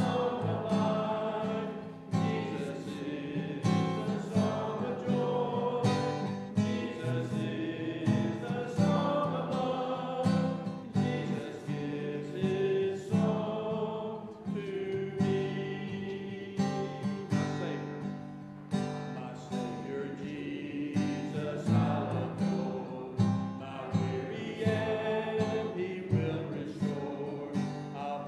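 Guitar played continuously, strummed chords with a held melody over them.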